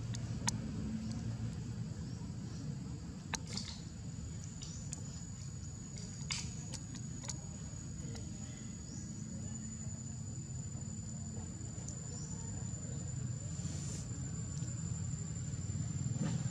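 Outdoor ambience: a steady high insect drone over a low, even rumble, with a few sharp clicks scattered through the first half.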